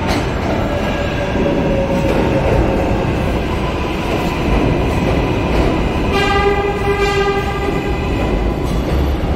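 A New York City 7 train subway running past the platform: a steady rumble of wheels on rail, with a motor whine slowly falling in pitch over the first few seconds. About six seconds in the train's horn sounds one steady blast of about a second.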